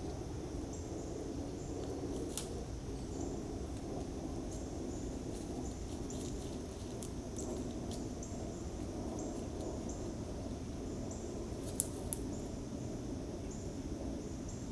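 Woodland ambience through a trail camera's microphone: a steady low noise with a faint, high, pulsing insect chorus. A few sharp clicks stand out, one early and two close together near the end.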